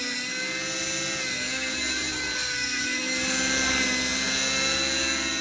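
Align T-REX 600N nitro RC helicopter in flight: the glow engine's high, steady whine and the rotor buzz, held by the AR7200BX governor under test. The pitch sags briefly and recovers twice, once near the start and once around the middle.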